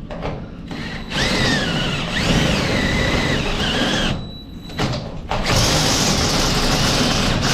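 Power drill boring into aluminum, in two runs: about a second in it cuts for three seconds with a whine that wavers in pitch, stops briefly, then runs again steadily from about five seconds on.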